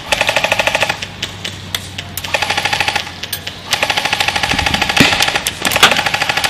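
Airsoft electric guns (AEGs) firing full-auto bursts, a rapid buzzing rattle of about a dozen shots a second. There is one burst in the first second, a short one in the middle and a longer one through the second half, with a few sharp single cracks in between.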